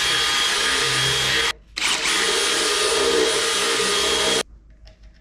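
Cordless drill running at full speed, its bit boring through a plastic fuel pump bucket, with a steady high whine. It stops briefly about a second and a half in, starts again, and cuts off about four seconds in.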